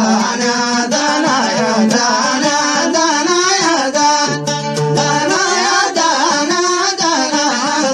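Song in the Yemeni dan style: a voice singing a winding melody with instrumental accompaniment, with a steady held note about halfway through.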